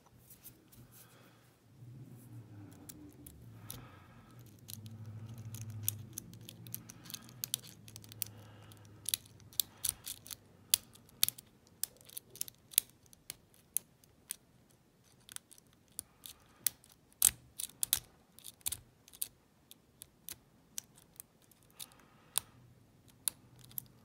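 Lock pick working the pin tumblers of a small brass padlock held under tension: sharp, irregular metallic clicks, a few a second, from about nine seconds in. Before that there is a low rubbing and scraping as the lock and tools are handled.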